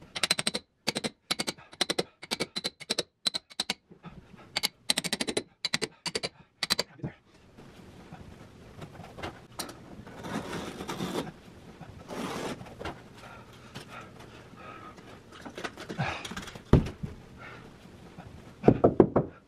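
A hammer striking a metal stair tucking tool about three times a second, sharp ringing taps, driving the carpet down into the tack strip at the back of the stair tread. After about seven seconds the tapping stops, followed by quieter scraping and rubbing of carpet by hand and one thump near the end.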